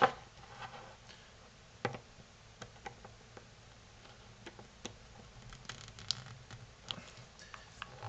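Steel pliers tips clicking and scraping against the aluminium bezel ring of a Klarus G20 flashlight head as they are set into its dimples to twist it. The clicks come scattered and light, with one louder knock about two seconds in.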